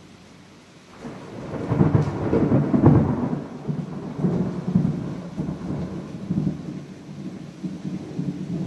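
A roll of thunder over heavy rain. The rumble starts about a second in, is loudest a second or two later, then keeps rolling in weaker surges.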